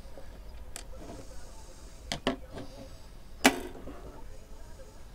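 A few light clicks and knocks as a radio's dial assembly is freed from its screws and lowered out of a wooden console cabinet, the sharpest knock about three and a half seconds in.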